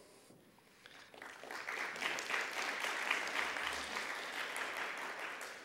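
Audience applauding, starting up about a second in, holding steady, then tapering off near the end.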